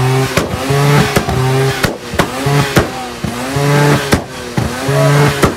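Mazda RX-7 FD's rotary engine revved hard in quick blips about once a second, each rising and falling in pitch, with sharp exhaust pops and bangs cracking between the revs.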